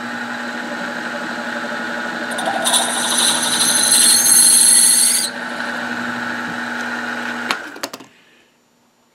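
Drill press running with a steady hum. From about two and a half seconds in, an 11/32" twist drill cuts into a brass button for about two and a half seconds, adding a loud, high-pitched cutting noise, as the clearance hole is opened up. The motor then cuts off and spins down near the end.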